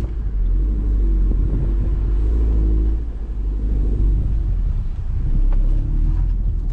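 Audi TT engine running at low revs, pitch rising and falling as the car crawls up a steep driveway under load, over a deep rumble.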